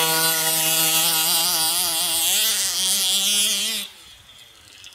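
Gas-powered King Motor T2000 1/5-scale RC truck's small two-stroke engine running at full throttle in a drag race, a steady high drone whose pitch wavers, then falling away sharply about four seconds in.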